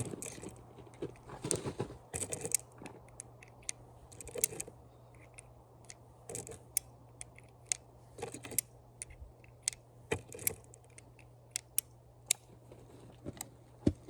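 Scattered sharp clicks and light rustles of small things being handled, irregular and spread across the whole stretch, over a faint steady hum.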